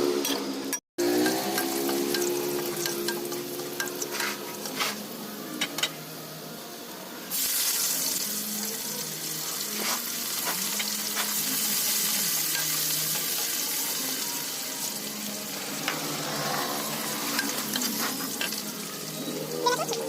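Food frying in hot oil in a pan, sizzling, with a spatula scraping and tapping as it stirs. About seven seconds in, the sizzle suddenly grows louder and brighter and then holds.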